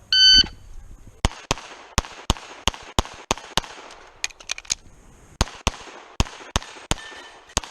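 Shot-timer start beep, then about a second later rapid pistol fire: a long string of shots, mostly in quick pairs, with a brief lull midway. A competitor is shooting a USPSA stage on the start signal.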